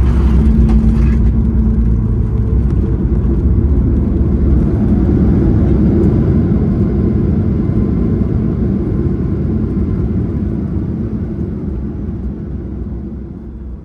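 Airliner landing rollout heard from inside the cabin: a heavy rumble from the wheels on the runway and from the engines, with a few sharp knocks at the start. A broad roar swells through the middle, and the noise fades toward the end as the plane slows.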